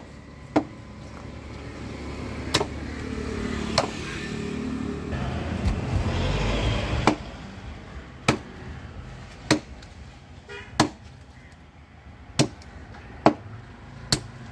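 Cleaver chopping cobia flesh and bone on a wooden chopping block: about ten sharp chops, roughly one every second or so. A motor vehicle passes between about two and seven seconds in, rising and then fading.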